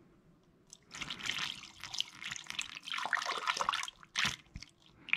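Coolant being poured from a jug into a car radiator, an uneven splashing of liquid that starts about a second in.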